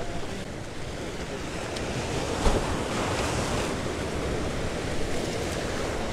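Waves washing against the jetty, with wind buffeting the microphone; a single sharp thump about two and a half seconds in.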